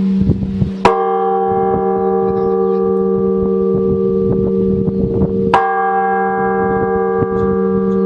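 Church bells in a trial ringing of a belfry's eight bells: a bell is struck twice, about four and a half seconds apart. Each stroke rings on with many overtones over a steady low hum.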